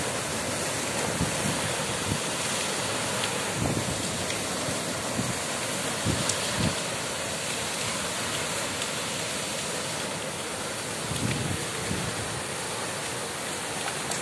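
Water jetting under high pressure from a borewell pipe, a steady rushing hiss as the column shoots high into the air, with wind now and then buffeting the microphone. The bore is flowing on its own under strong underground pressure during the rains.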